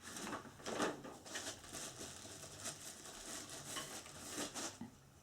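Irregular light rustling, scraping and small clicks of chair parts and fittings being handled during chair assembly.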